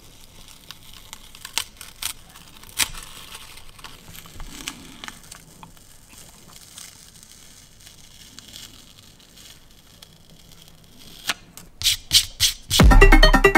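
Tape being peeled off a painted card: faint, sparse crackling and rustling with an occasional tick. Near the end there are a few sharp hits, and then loud electronic music comes in.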